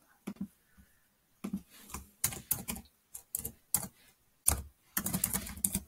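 Typing on a computer keyboard: uneven single keystrokes, then a quicker run of strokes near the end.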